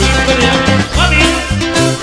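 Live cumbia band playing an instrumental passage: bass, guitars and accordion over a steady dance beat.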